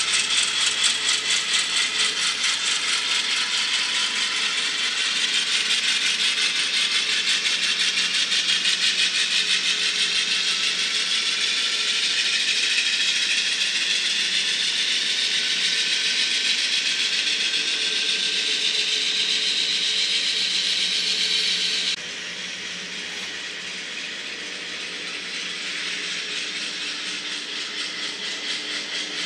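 N-scale model diesel locomotives running along the layout track: a fast, dense rattle of the drive gears and wheels under a whine that slowly rises in pitch. The sound drops abruptly quieter near the end.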